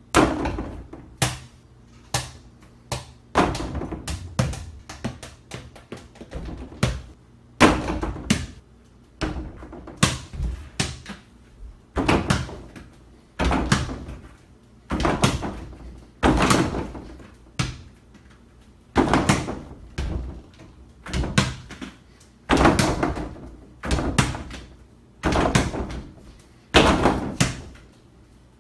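Mini ball shot again and again at an over-the-door basketball hoop, thumping the backboard and rim and shaking the door, each hit dying away over about a second. The hits come quickly and irregularly for the first several seconds, then about one every second and a half.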